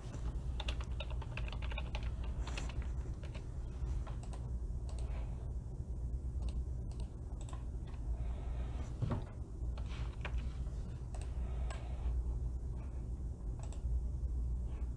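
Computer keyboard typing, irregular taps and clicks scattered through, over a steady low hum.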